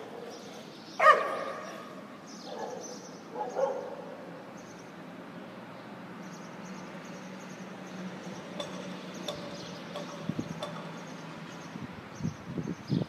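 A dog barking: one loud bark about a second in, then two quieter barks a couple of seconds later, over steady street background noise, with a few low bumps near the end.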